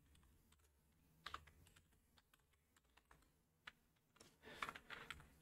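Faint keystrokes on a computer keyboard: a few isolated taps, then a quicker run of keys near the end.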